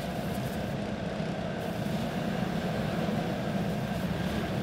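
Several racing karts' small single-cylinder OHV clone engines running together inside a large arena, a steady drone with no sudden changes.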